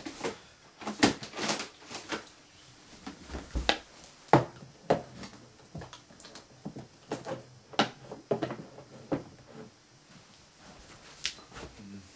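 Irregular clicks and knocks, as of things being handled and set down in a small room, with a few duller thumps in the middle. The sharpest knock comes about four seconds in.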